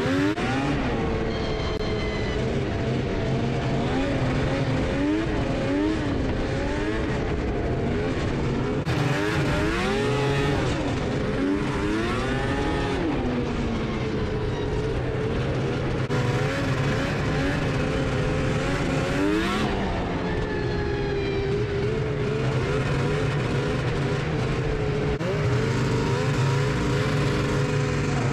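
Two-stroke snowmobile engines running under varying throttle, their pitch rising and falling repeatedly over a steady low drone.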